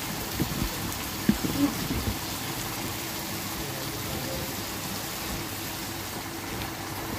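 Dry fish being rinsed by hand in a steel bowl of water: light splashes and sloshing, a few of them sharper in the first two seconds, over a steady background hiss with a low hum.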